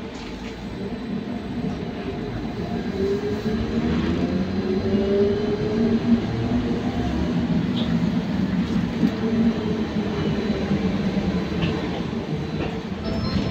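Interior running noise of a Trolza-5275.07 Optima trolleybus under way. The electric traction drive's whine rises in pitch and grows louder over the first half as it picks up speed, over a steady rumble from the road and body.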